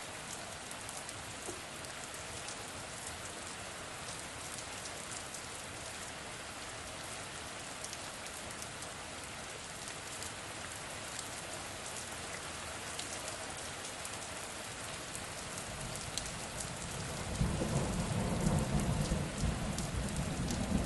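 Steady rain pattering on a surface, with scattered sharp drop ticks. A low rumble of thunder builds in the last few seconds and becomes the loudest sound.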